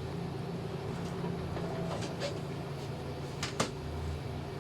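A sharp click, with a few fainter clicks before it, as the monitor is switched on for a test, over a steady low electrical hum.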